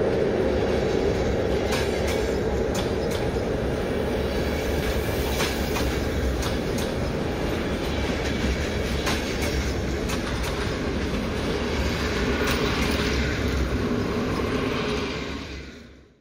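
Passenger coaches of a passing electric-hauled train rolling by at close range, a steady rolling noise with repeated sharp clicks from the wheels on the rails. The sound fades out near the end.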